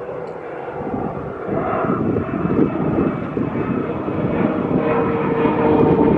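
Small airplane flying low overhead, its engine drone growing louder as it approaches, with steady engine tones coming through more clearly in the last couple of seconds.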